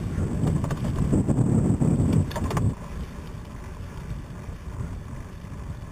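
Wind buffeting and tyre rumble on tarmac from a camera mounted low on a moving recumbent trike. A few sharp clicks come just before the noise drops to a quieter rumble about halfway through.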